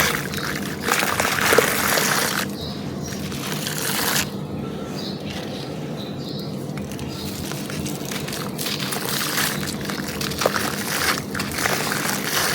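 Dry, brittle material being crushed and crumbled by hand, a gritty crunching with small crackles. It is loudest in the first couple of seconds, quieter through the middle, and picks up again near the end.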